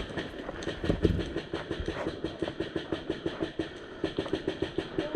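Quick, even footsteps of a person running over rough ground, about four or five steps a second.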